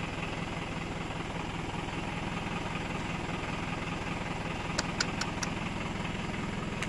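Box truck engine running steadily at a low, even speed, with no revving. A quick run of four sharp clicks comes about five seconds in, and one more near the end.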